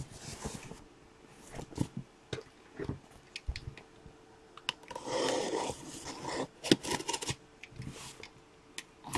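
A cardboard shipping box being handled and cut open with a box cutter: scattered knocks and taps, a longer rasping stretch about five seconds in, then a quick run of sharp clicks.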